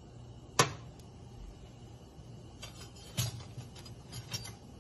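Kitchen clicks and knocks at the stove: one sharp knock about half a second in, then a cluster of lighter clicks and taps around three seconds in, over a low steady hum.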